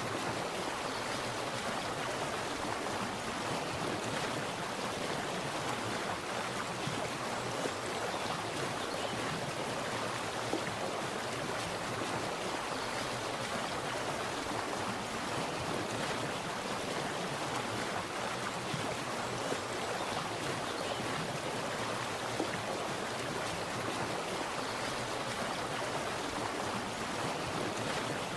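Water splashing and flowing in a steady rush, even and unbroken.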